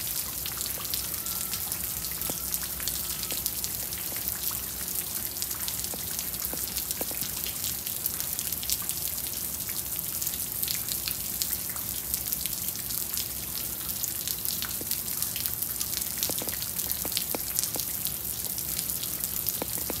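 Steady freezing rain, with many small drops ticking as they strike ice-glazed ground and puddles of standing water.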